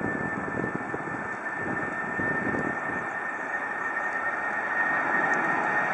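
Airbus A319's twin jet engines running at low thrust as the airliner taxis and turns onto the runway: a steady high whine over a broad rush, growing a little louder near the end.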